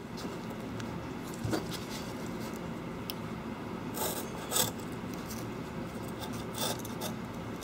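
Leftover adhesive being scraped off an iPad 4's metal frame with a thin steel blade: a steady rasping scrape, with a few louder strokes about four seconds in and again near the end.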